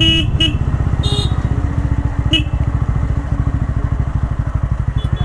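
TVS Ronin 225's single-cylinder engine running at low revs with a steady, rapid pulse, heard close up from the bike. A few short high-pitched beeps cut in near the start, about two seconds in, and near the end.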